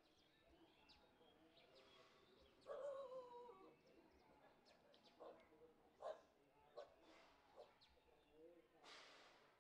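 Faint animal calls: one longer call with a slightly falling pitch about three seconds in, then four short calls under a second apart.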